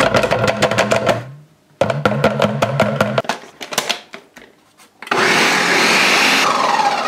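Music with a steady beat of drum hits for the first three seconds. About five seconds in, a large countertop blender runs at full speed for a second and a half, mixing a thick powder shake, then winds down with a falling whine as the motor stops.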